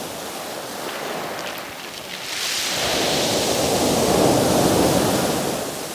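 Small sea waves breaking and washing up a pebble beach: surf hissing, with one wave building about two seconds in, loudest a couple of seconds later, then easing off.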